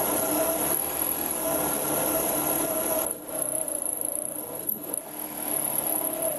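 Small 775 DC motor cross-drill attachment running steadily, its bit cutting a hole through a hard metal shovel handle; the motor's hum and high whine waver a little as the bit loads up.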